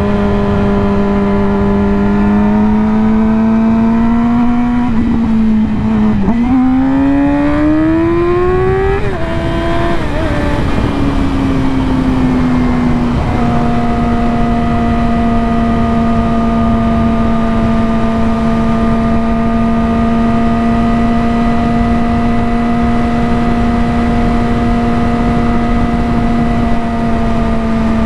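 2020 Yamaha R6's inline-four engine through an M4 slip-on exhaust with the catalytic converter removed, running at steady revs with wind noise. About six seconds in the revs climb for a few seconds, then ease back, and the engine holds a steady cruise for the rest.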